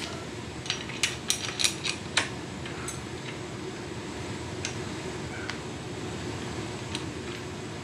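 Small metal motorcycle parts clicking and clinking as they are handled and fitted around a foot-peg bracket and brake pedal: a quick run of sharp clicks in the first two seconds, then a few scattered single clicks. A steady low hum runs underneath.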